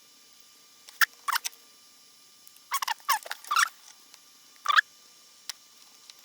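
Thin plastic backing film being peeled off a thermal pad: short squeaky, crackling rasps, a few at a time, with a cluster in the middle.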